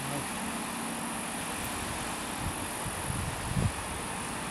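Hot spring water running down travertine terraces, a steady rushing hiss, with a few low bumps about three seconds in.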